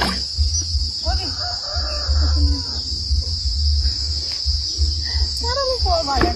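Steady, high-pitched insect chorus droning throughout, with gusts of wind rumbling on the phone microphone.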